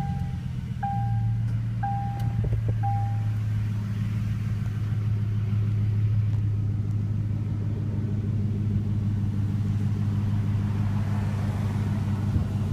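2007 Chevrolet Silverado's 5.3-litre V8 idling steadily through a Borla Pro XS straight-through muffler, with a deep, even exhaust note just after starting. A chime beeps about once a second, four times, in the first few seconds.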